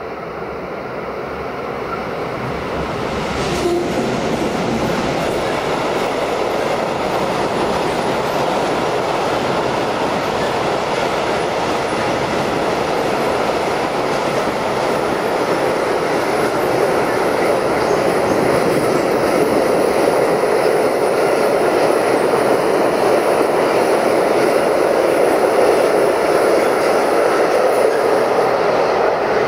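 Freight train passing close by, its wagons' wheels rattling over the rail joints, with a faint high wheel squeal. The sound swells over the first few seconds and then holds steady.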